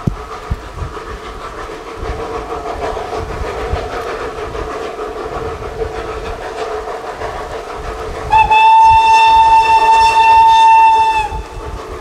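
Narrow-gauge (760 mm) forest-railway steam locomotive running, then giving one long blast on its steam whistle. The whistle is a single steady note, starts about eight seconds in, and lasts about three seconds.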